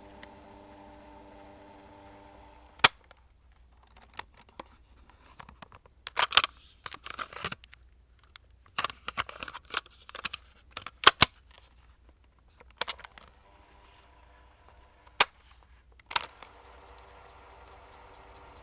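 Cassette Walkman: the tape mechanism whirs steadily until a button press stops it with a sharp click about three seconds in. Then come plastic clicks and clatter of the cassette door and tape being handled, and near the end two sharp button clicks, after which the mechanism whirs again.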